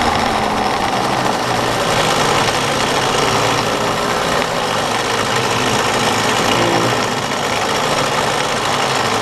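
Bambino go-kart's small engine running steadily at low revs as the kart rolls slowly.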